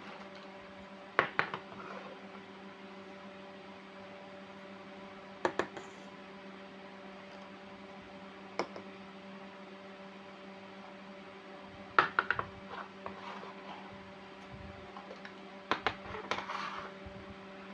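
Small plastic toy kitchen pieces set down one at a time on a tabletop: short light clacks in about five separate clusters, over a steady electrical hum.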